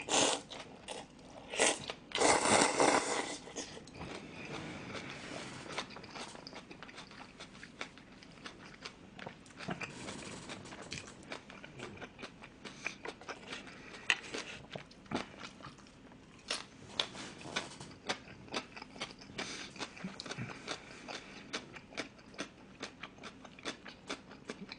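A person slurping up a mouthful of jjamppong noodles, with a loud slurp about two seconds in, then chewing with a long run of small mouth clicks and smacks.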